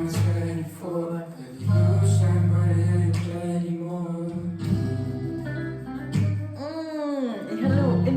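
A song playing: singing over deep, sustained bass notes, with a swooping vocal run that dips down and comes back up in pitch about seven seconds in.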